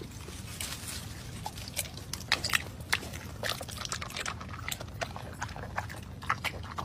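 A dog eating tomatoes: irregular wet chomps and crunches as it bites and chews the fruit.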